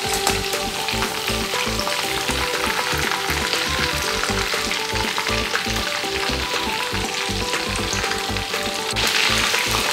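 Batter-coated chicken pieces deep-frying in hot oil in a kadai, sizzling and crackling steadily, while a wire skimmer stirs and turns them in the oil.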